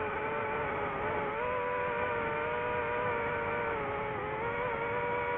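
DJI FPV quadcopter's four motors and propellers whining steadily in flight, recorded by the drone's own microphone. The pitch drifts with throttle, dipping briefly about four seconds in and then climbing again.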